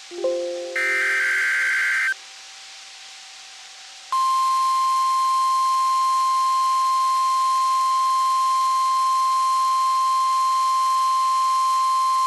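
NOAA Weather Radio weekly test: the last buzzing SAME digital header burst ends about two seconds in, with a short lower tone at the start. After a brief pause, the 1050 Hz weather-radio warning alarm tone starts about four seconds in and holds steady.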